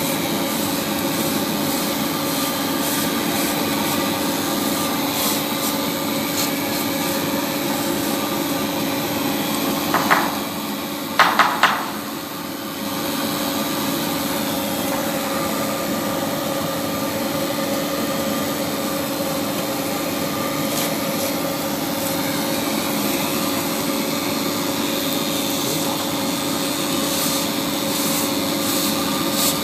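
Polygon pole welding machine running with a steady mechanical hum and hiss that carries a constant tone. About ten seconds in, a few short sharp knocks break through, and the level dips briefly before the steady running resumes.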